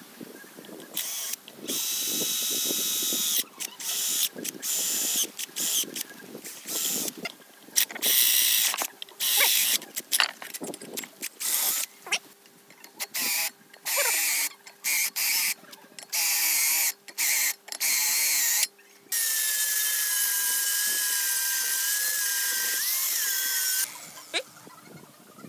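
Cordless drill with a step bit cutting through thin steel plate, run in many short trigger bursts and then one steady run of several seconds with a high whine, before it stops near the end.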